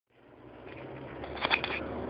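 Car engine and road noise heard from inside the cabin, fading in from silence, with a short cluster of sharp clicks about one and a half seconds in.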